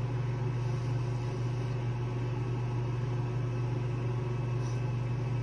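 Electric fan running with a steady low hum and an even rush of air.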